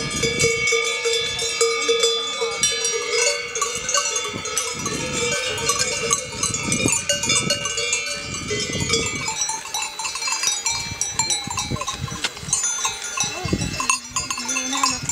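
Several livestock bells ringing on and off together, their clanks at many different pitches overlapping throughout.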